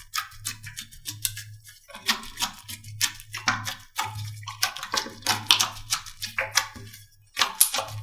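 Slime being squeezed and worked by hand, making rapid, irregular sticky clicks and crackling pops, with background music. Everything drops out briefly about seven seconds in.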